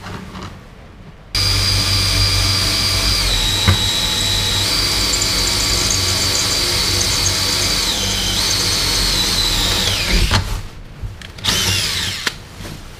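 Power drill boring through the trailer floor inside a recessed anchor point, running steadily for about nine seconds with its whine dipping in pitch twice under load and falling as it slows. After a short pause it runs again briefly and winds down.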